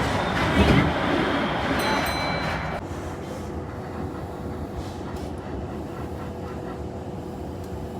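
Kintetsu 80000 series Hinotori limited express train running: loud rushing noise for about the first three seconds, with a brief set of high steady tones around two seconds in, then settling to a quieter steady hum.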